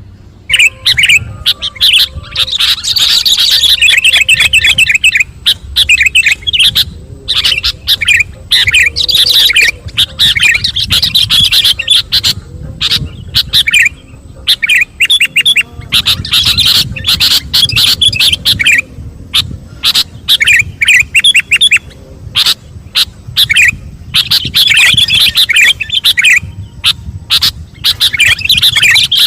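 Sooty-headed bulbul (kutilang) singing loudly in bursts of rapid trills and whistled notes, phrase after phrase with short pauses between, in the full-voiced singing that shows the bird in top form, with murai (white-rumped shama) phrases learned into its song.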